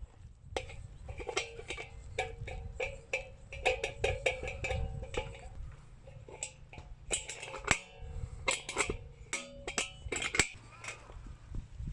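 Wire legs of a stainless steel fire pit being folded against its bowl: a rapid string of metal clicks and clinks, several of them setting the bowl ringing briefly.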